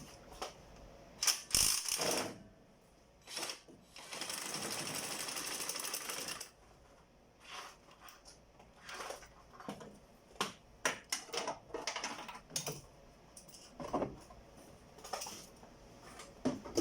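Ratchet wrench with a deep socket and extension clicking as the engine mount bolts are loosened, with scattered metal clinks and knocks of tools and parts. About four seconds in comes a steady rasping stretch of about two seconds, and later clusters of quick clicks.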